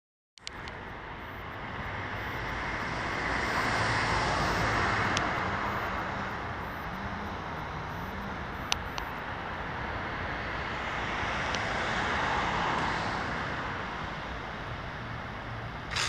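Road traffic noise, swelling and fading as vehicles pass, twice, with a couple of faint clicks.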